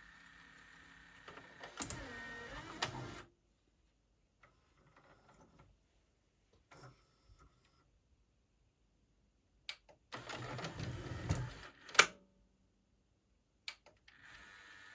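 Small motor and gear train of a Pioneer CLD-D504 LaserDisc player's loading mechanism running in short bursts, with a whine that dips and rises in pitch, separated by pauses. A sharp click comes about twelve seconds in.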